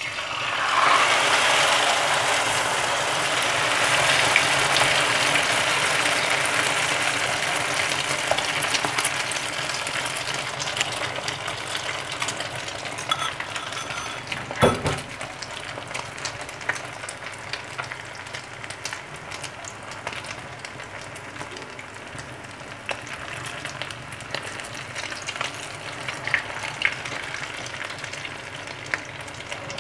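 Beaten egg with minced pork, chilli and holy basil poured into hot oil in a non-stick frying pan for a Thai omelet (khai jiao): a loud sizzle that starts at once, then grows gradually quieter into a steady fry with scattered pops. A single knock about halfway through.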